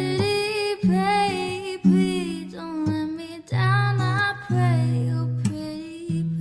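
Female voice singing long held, wavering notes over acoustic guitar accompaniment.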